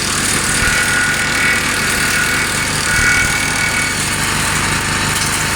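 Wheel Horse garden tractor engine running steadily with the belt-driven MacKissic chipper shredder spinning, a rattly mechanical clatter with a faint whine that comes and goes.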